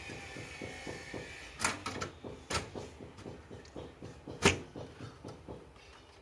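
A hard drive being fitted into a desktop PC case's drive bay and locked in: light scraping, then three sharp plastic-and-metal clicks among smaller knocks, the loudest about four and a half seconds in.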